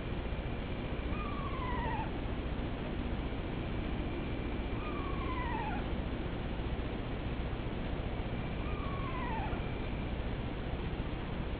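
An unidentified animal calling outside: three short falling calls, each under a second, about four seconds apart, each preceded by a faint, steady higher note.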